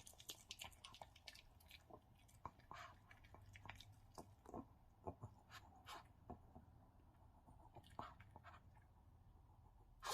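A Maltese dog chewing napa cabbage: faint, irregular wet crunches and clicks of its teeth on the raw leaves and stalks.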